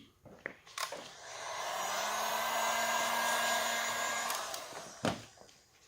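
Heat gun blowing hot air. Its fan spins up about a second in, runs steadily, and winds down near the end, drying the alcohol solution under the paint protection film so the film sticks.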